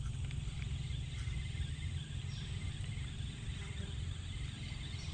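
Steady outdoor ambience: a low, fluttering rumble of wind on the microphone under a faint high hiss of insects.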